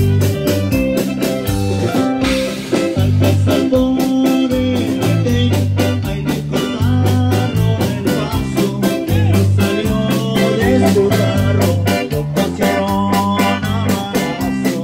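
Live band playing dance music: a bass line, keyboard and guitar over a drum kit keeping a fast, steady beat.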